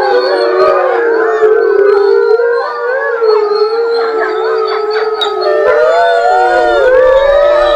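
Several captive wolves howling together, many voices overlapping in long, wavering tones. This is the group howl the pack raises when one of its members is led out of the enclosure for a walk.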